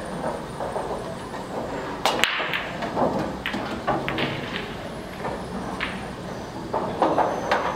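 Pool balls clacking: a sharp crack about two seconds in, scattered lighter clicks after it and a quick cluster of clicks near the end, over steady room noise.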